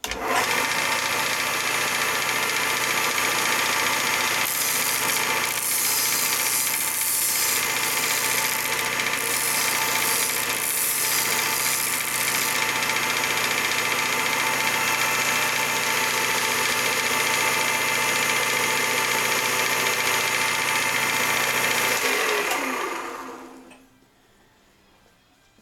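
Delta sander with a 6-inch sanding disc switched on and running with a steady motor hum. From about four to twelve seconds in, a rougher hiss joins it as wood is sanded, rounding over the edges of intarsia pieces. It is switched off at about 22 seconds and winds down to a stop.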